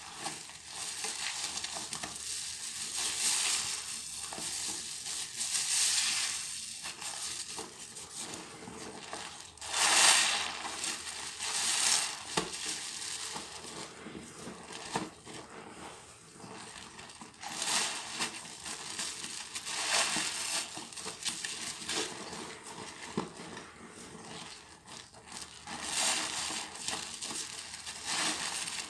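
Hands squeezing and kneading a soap-soaked sponge in thick suds: a wet squishing hiss of foam that swells with each squeeze, about every two to three seconds.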